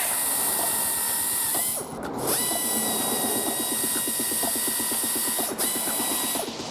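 A power tool running with a steady high whine and a fast, even rattle underneath, cutting out briefly about two seconds in and again near the end.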